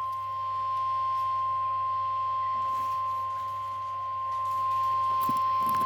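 NOAA Weather Radio 1050 Hz Warning Alarm Tone: a single steady, unbroken high-pitched tone over a faint low hum. It is the alert that a warning broadcast is about to follow.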